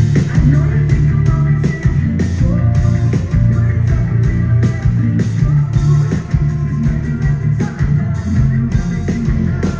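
A rock band playing a heavy song live, loud, with a steady drumbeat under the guitars.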